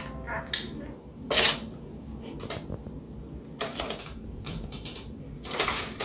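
Notebook paper rustling and scratching in three short bursts as a small parrot moves about on the open pages.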